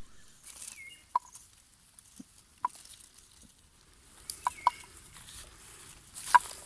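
Hens clucking: a handful of short, separate clucks spaced out, two of them close together near the middle.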